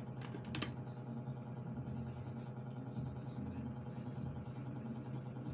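A steady low mechanical hum, like a small motor running, with a plastic comb faintly scraping along an aloe vera leaf to draw out the gel. A couple of light clicks come about half a second in.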